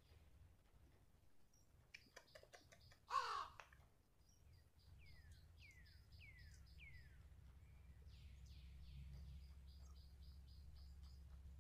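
Faint forest birdsong: repeated falling whistled notes and quick runs of short high notes. A few sharp clicks come about two seconds in, and a short harsh call about three seconds in is the loudest sound.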